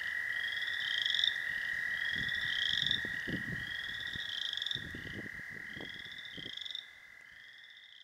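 A marsh chorus of male chorus frogs calling to attract mates. Near ones give repeated rising, trilled creaks about once every second and a half, over a steady high hum of many more frogs. The sound drops in level near the end.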